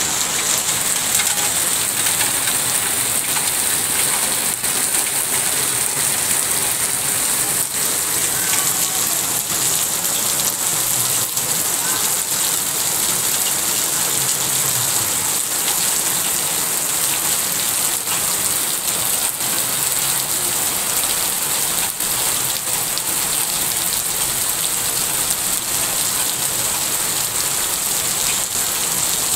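Heavy rain falling steadily on a wet street and pavement, an even hiss with drops hitting close by and water pouring off roof edges.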